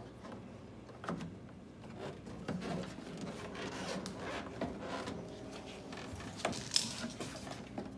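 2011 Kia Sorento door lock assembly being wiggled and pulled inside the door shell: plastic and metal parts rubbing, scraping and clicking, with one sharp click near the end. The assembly will not come out because a bolt is still holding it.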